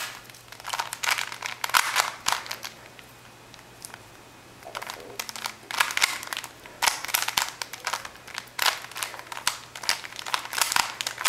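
Plastic Rubik's Cube being turned by hand: quick runs of clicking and clacking as its layers rotate, with a short pause about three seconds in.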